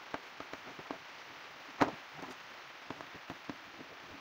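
Hand screwdriver tightening small screws into a plastic device case, giving irregular light clicks and taps. There is one louder knock a little under two seconds in.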